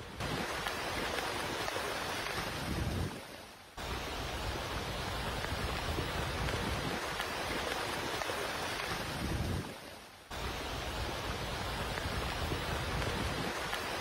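Steady rushing noise of heavy rain and floodwater heard from inside a car driving through flooded streets. It drops out briefly twice, about three seconds and ten seconds in.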